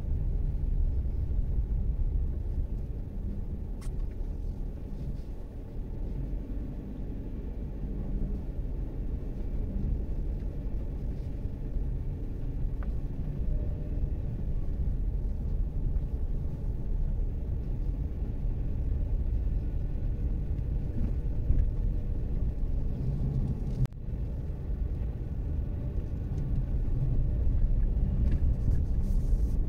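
Haval Jolion car driving: a steady low rumble of engine and road noise, with a momentary drop-out about four-fifths of the way through.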